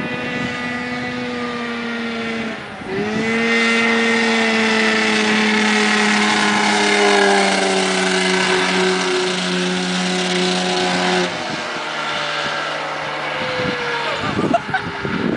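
Golf cart powered by a 550 cc Arctic Cat snowmobile engine, a two-stroke twin, running at high, steady revs. The engine note dips briefly about two and a half seconds in, comes back louder and holds for about eight seconds, then drops to a quieter, slowly falling note. Wind buffets the microphone near the end.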